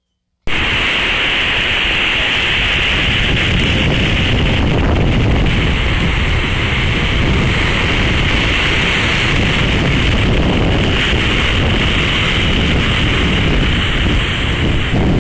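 Surf breaking over black lava rocks with heavy wind rumble on the microphone: a steady, loud rushing noise that starts abruptly about half a second in.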